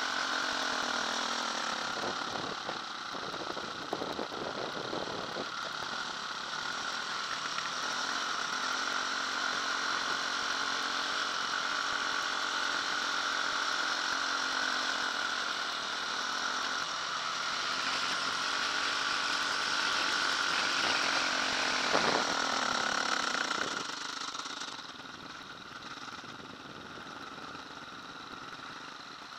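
Off-road motorcycle engine running as the bike is ridden along a dirt track, its pitch rising and falling with the throttle. About three-quarters of the way through it drops to a quieter, low idle as the bike slows to a stop.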